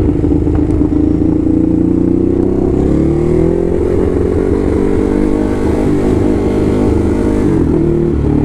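Ducati Hypermotard's L-twin engine running under way. Its pitch holds steady at first, climbs about three seconds in as the bike accelerates, then holds again and drops briefly near the end.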